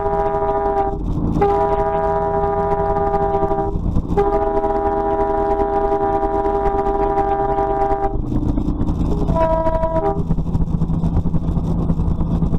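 Truck air horn blown in a series of long blasts, the longest about four seconds, then a short blast near the end, over steady engine and road rumble.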